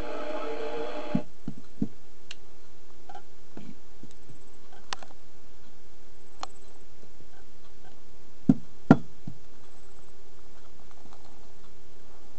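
Scattered small clicks and knocks of parts and tools being handled while working on a CB radio, with two louder knocks close together about two-thirds of the way in, over a steady hum.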